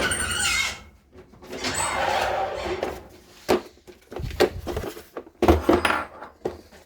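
Hands working on a 45cc two-stroke chainsaw while a compression test is set up: two scraping sounds, each about a second long, then a string of knocks and clicks.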